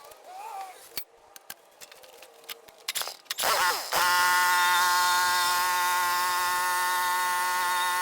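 A few light clicks and knocks, then a power tool's electric motor spins up a little over three seconds in and holds a steady high whine.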